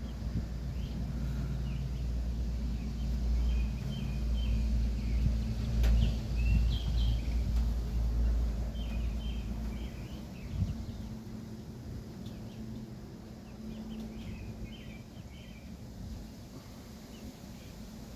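Wind buffeting the microphone, easing off about ten seconds in, over the steady low hum of honeybees at an opened hive, with birds chirping now and then.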